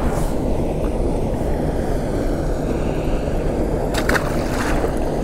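Steady low rumble of wind buffeting the microphone, with a short crackling noise about four seconds in.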